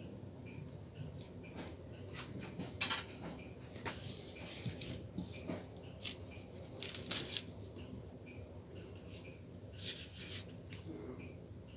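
Banana peeling with a small kitchen knife over a wooden cutting board: short scrapes and clicks of the blade and the peel, loudest about three, seven and ten seconds in.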